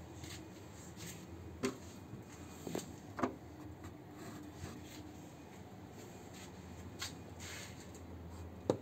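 Scattered light knocks and clicks of a hand handling metal fittings and instrument casings inside a submarine compartment, about five over several seconds, the loudest near the end, over a faint steady hum.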